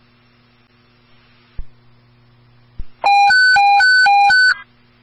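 Dispatch radio alert tone: a loud warble alternating between a low and a high pitch, three low-high pairs over about a second and a half, preceded by two short clicks of the radio channel keying. A low hum from the channel runs underneath. The tone is the kind that precedes a priority broadcast to all units.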